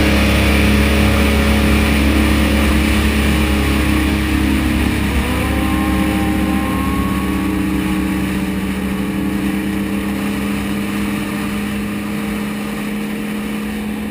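Sport-bike engine running at a steady cruise at highway speed, with heavy wind noise on the microphone. A faint rising whine comes in about five seconds in, and the overall sound eases slowly.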